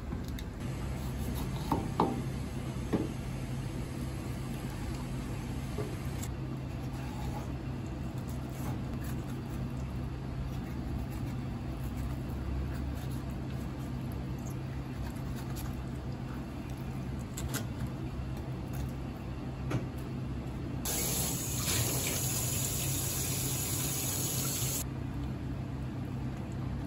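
Knife work and handling of a fish on a plastic cutting board over a stainless steel sink, over a steady low hum, with two sharp knocks about two and three seconds in. About three quarters of the way through, water runs from a tap into the sink for about four seconds and then stops.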